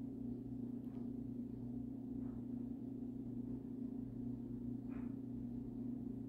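Singing bowl giving a steady, sustained ringing hum, with a few faint handling sounds.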